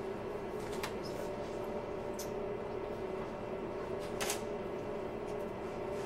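A spoon scooping avocado flesh from its skin, making three light clicks, the loudest about four seconds in, over a steady low room hum.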